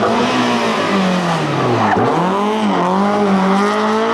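BMW E30 M3 rally car's four-cylinder engine at speed: the engine note falls about a second in, then climbs again as the car pulls away.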